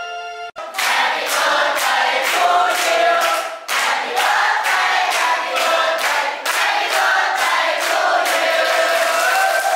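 A chiming music-box tune stops about half a second in. Then a large group of young voices sings a melody together, clapping in time at about three claps a second.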